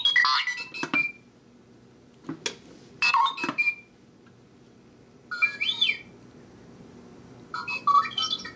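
R2-D2 talking cookie jar's sound chip playing the droid's beeping and whistling movie sound effects through a small speaker in the lid, set off by flipping the lid. It comes in four short bursts of chirps and warbling, gliding whistles.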